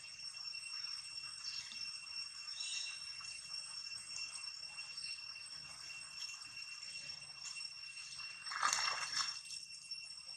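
Steady high-pitched insect drone over faint splashing of monkeys moving through shallow pond water, with one louder splash of water near the end.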